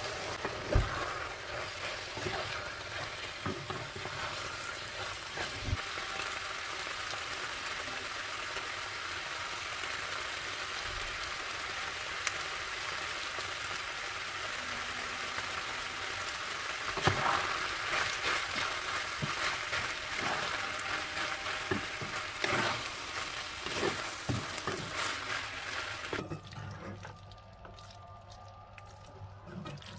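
Fusilli in minced-meat tomato sauce sizzling in a nonstick frying pan, with scattered knocks and scrapes of utensils against the pan as it is stirred. Near the end the sizzling cuts out abruptly.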